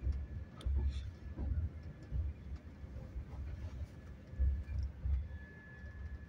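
Sadbhavna Express passenger coach heard from inside, its wheels knocking with irregular deep thumps over the rail joints and points as it runs into the station. A faint steady high whine comes in about five seconds in.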